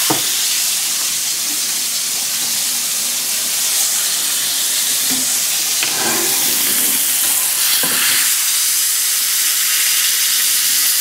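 Sirloin cap roast searing in bacon grease in a cast iron pan: a steady, loud sizzle of frying fat.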